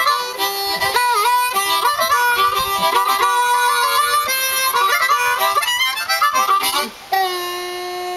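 Harmonica played solo in a blues phrase: quick runs of notes and chords, one note bent down and back up about a second in, ending on a long held note from about seven seconds in.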